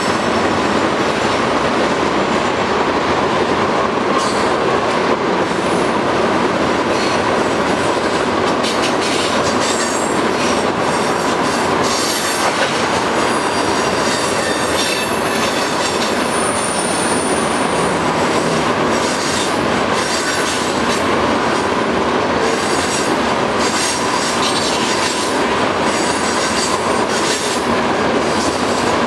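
Freight train of tank cars rolling steadily past: a continuous rush of steel wheels on rail, with a thin steady whine of wheel squeal and scattered clicks.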